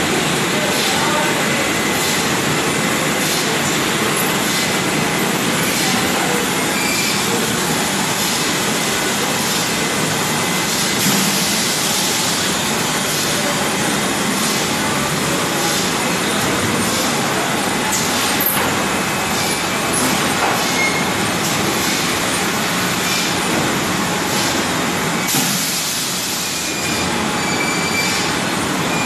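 Steady machine noise of a PET water-bottle rinsing-filling-capping line and its conveyor running, an even dense hiss with occasional light clicks.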